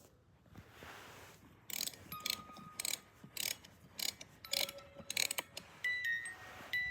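Irregular mechanical clicking and rattling, with a few short ringing, chime-like notes in the second half.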